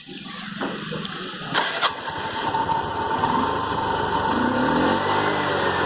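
TVS King auto-rickshaw's single-cylinder four-stroke engine being started: a couple of knocks as it cranks and catches, then running steadily, with a brief rise in revs near the end. The freshly replaced air filter intake hose has cured its abnormal noise, and it now runs with its normal factory sound.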